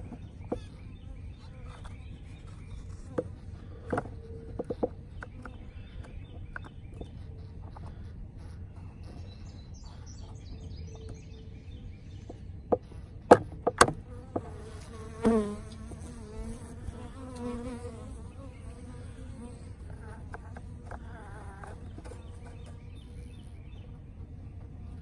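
Honeybees buzzing at an open hive, a steady drone, with a louder buzz of wavering pitch just past halfway as a bee flies close. A few sharp clicks come as the plastic queen catcher is handled, the loudest two just before that close buzz.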